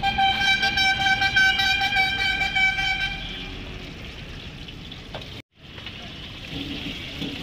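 A vehicle horn held steadily for about three seconds over road traffic noise; the sound cuts out briefly about five and a half seconds in.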